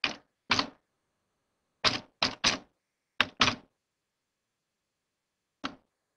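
Computer keyboard keystrokes: a scattered run of about seven key presses in the first three and a half seconds as a word is typed, then one more single click a couple of seconds later.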